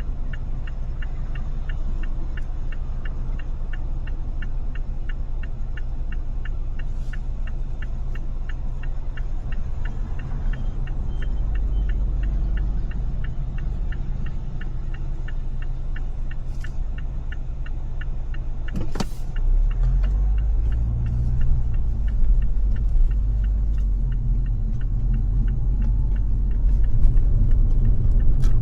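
Car interior on the move: a low engine and road rumble, with a turn-signal indicator ticking about twice a second that stops about two-thirds of the way through. After one sharp click the rumble grows louder, as if the car pulls away or speeds up.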